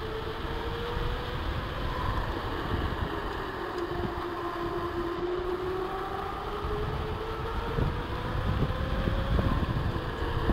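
Trek Powerfly 5 electric mountain bike rolling fast on asphalt: a steady hum that dips slightly in pitch and rises again as speed changes, over wind buffeting the microphone.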